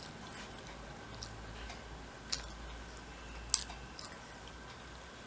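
A person chewing a mouthful of rice and fish roe fritter curry eaten by hand: quiet wet mouth sounds with faint ticks, and two sharp smacks, about two seconds in and again a second later.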